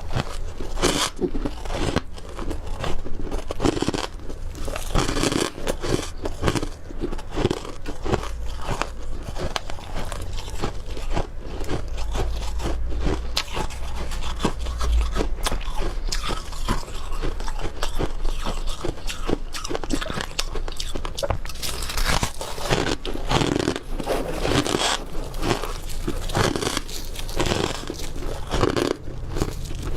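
Close-up biting and chewing of dry, squeaky freezer frost chunks: a dense run of crisp crunches through the whole stretch.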